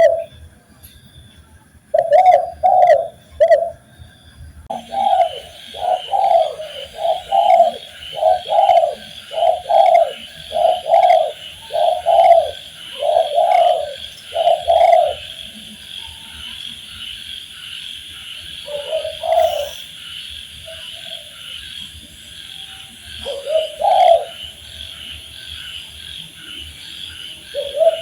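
Spotted dove (tekukur) cooing: repeated low coo phrases, a fast run of them through the middle, then only a few scattered coos. From about five seconds in, a steady, high, pulsing chirring runs underneath.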